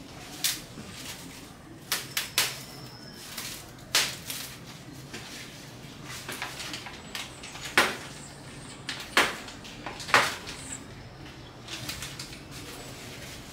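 Handling noise from unpacking bike parts and packaging: a scattered series of sharp knocks and clicks, about eight in all, over a faint steady hum.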